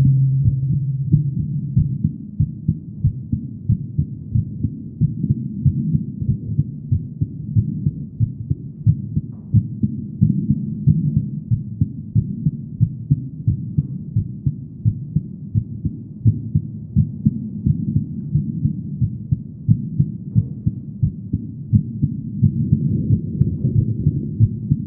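A woman's heartbeat: dull, low beats in a steady, even rhythm of a little over one a second. A low hum runs under it for about the first two seconds.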